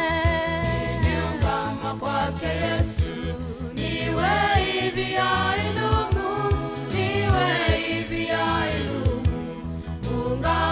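Gospel song: several voices singing together over a band with a steady beat and bass line.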